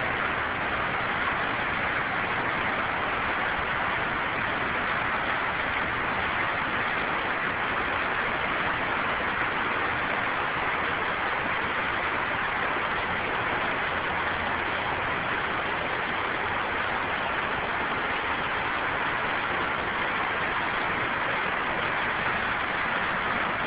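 Waterfall running, a steady rushing hiss of falling and splashing water with no breaks.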